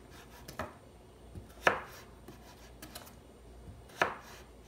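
Kitchen knife cutting a peeled raw potato into fry strips on a wooden cutting board: a few separate knocks of the blade meeting the board, about a second apart, two of them louder.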